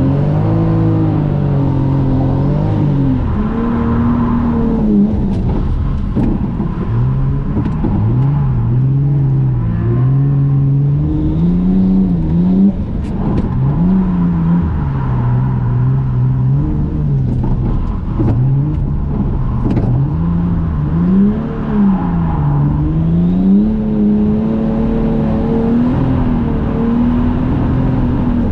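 Toyota JZX100 Mark II's straight-six engine revving up and falling back again and again as the car is drifted, heard from inside the cabin.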